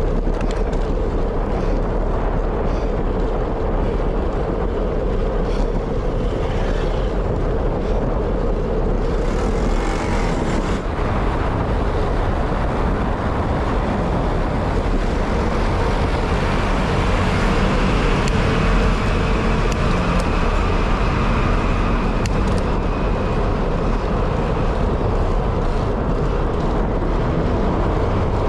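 Steady rush of wind and road noise on the microphone of a rider on the move.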